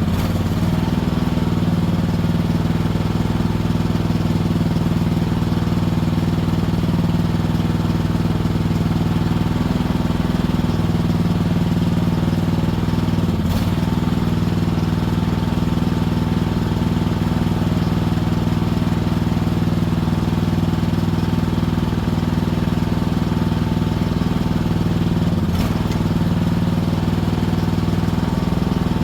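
Mini excavator engine running steadily at a constant speed, with two short knocks, one about halfway and one near the end.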